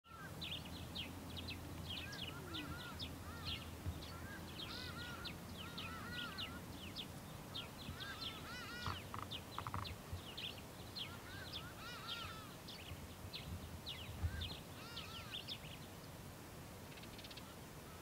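Several birds calling at once: quick chirps and short whistled notes overlapping throughout, over a low steady rumble.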